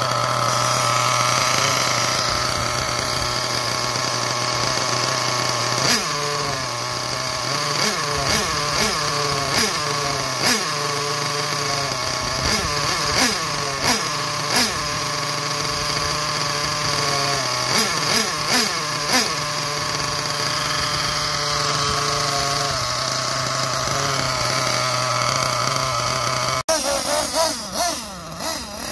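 Small nitro engine of a Hobao Hyper 8 1/8-scale buggy, a MAC28, idling steadily, then blipped again and again from about six seconds in, each rev rising and falling in pitch. Near the end it revs hard several times as the buggy drives off. It is set rich for its first run after a full rebuild.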